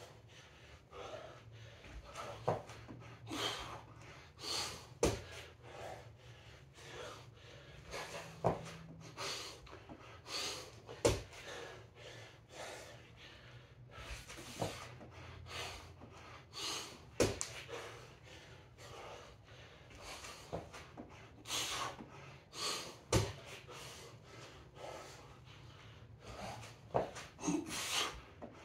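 A man breathing hard from exertion, with sharp forceful exhales every second or so. Now and then a short thud of hands or feet landing on a rubber gym floor.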